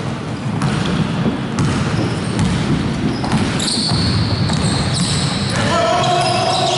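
Basketball dribbled and bouncing on a hardwood gym floor during play, with players' voices in the background, echoing in a large hall.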